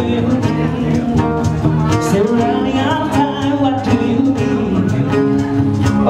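Live acoustic band music: acoustic guitar and bass guitar playing under sung vocals.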